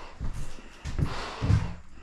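A few short knocks and scuffs in a small room, about four in two seconds.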